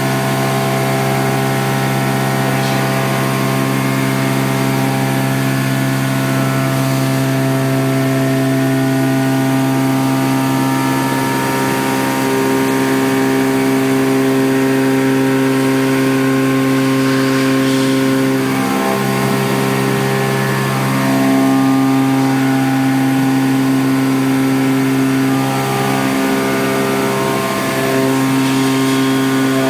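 Okuma Genos M560-V vertical machining centre milling: a steady machine tone with several pitches held together, which shift a few times in the second half as the cut changes.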